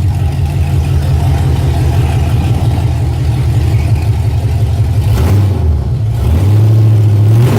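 Holden Commodore's engine running loudly in drive, turning the freshly rebuilt diff and rear wheels. Its note changes about five seconds in, then holds steady.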